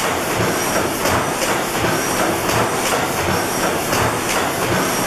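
Snow-Worthington 600-horsepower reciprocating natural gas engine running, with a steady, drum-like beat of about two strokes a second and a hiss over it.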